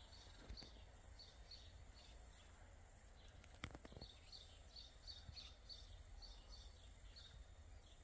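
Faint series of short, high sparrow chirps, about three to four a second, breaking off after a couple of seconds and starting again in a longer run. One sharp click near the middle.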